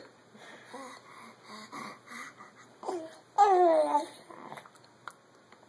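Infant babbling in short, soft sounds, with one louder drawn-out vocal sound that slides down in pitch about three and a half seconds in.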